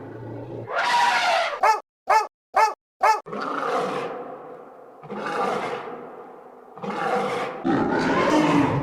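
A run of separate animal sound-effect clips: a roar, four short sharp calls about half a second apart, then three longer roars.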